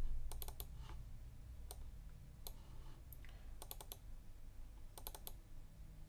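Faint clicks of a computer mouse and keyboard, some single and some in quick runs of three or four.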